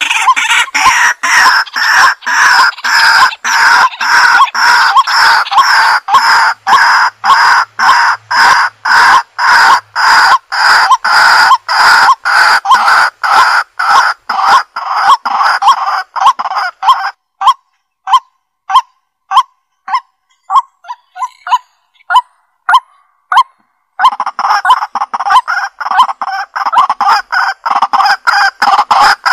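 Bird-like honking calls repeated rapidly and evenly, about three a second, with a short sparse stretch of scattered notes partway through before the steady calling resumes.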